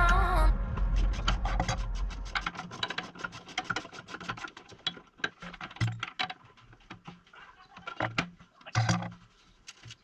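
A rapid, irregular run of small clicks and taps with a few dull knocks among them, thinning out toward the end. The tail of background music fades out in the first half second.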